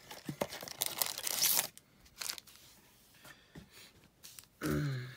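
Cardboard blaster box and plastic-wrapped trading card packs rustling and crinkling as a pack is pulled out of the box, with small clicks, for about the first second and a half. A brief vocal sound from a person near the end.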